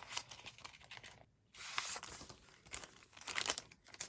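Paper and packaging of a sticker kit crinkling and rustling as it is handled and unpacked, in irregular bursts with a brief pause about a second in.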